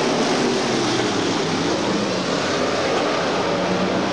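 A pack of IMCA stock cars' V8 engines running at racing speed around a dirt oval, several engine notes rising and falling over one another above a steady roar of the field.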